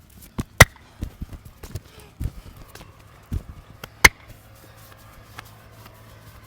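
Hand strikes of a percussive massage: a run of slaps and chops on the body, with two loud sharp claps about half a second in and near four seconds in, after which the strikes stop.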